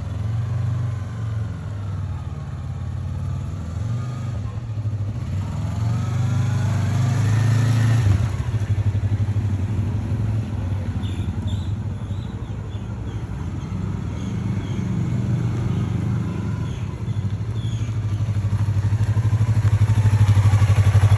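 Yamaha R3's 321 cc parallel-twin engine as the motorcycle is ridden along the street. The engine revs up with a rising pitch about six to eight seconds in, then runs steadily, and it grows louder near the end as the bike comes up close.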